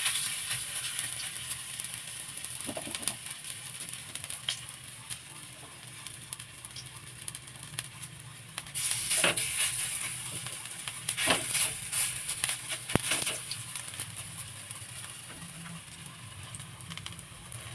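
Raw-banana and potato fritters (bara) sizzling as they deep-fry in hot oil: a steady hiss that swells louder about halfway through and again shortly after, with a few sharp clicks.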